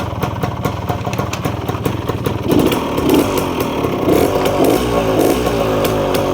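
Yamaha DT 175's single-cylinder two-stroke engine idling, then revved up several times from about two and a half seconds in, the revs rising and falling.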